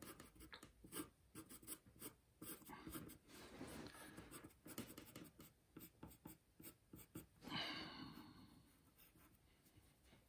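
Pencil scratching on paper, faint, in many short sketching strokes.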